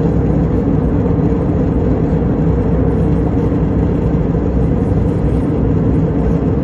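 Airliner cabin noise in flight: a steady drone of the jet engines and rushing air, heaviest in the low end and unchanging throughout.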